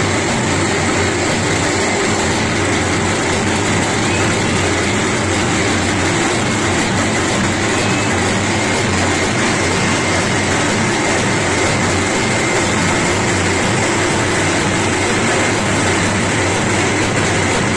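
Steady, loud din of a large packed crowd.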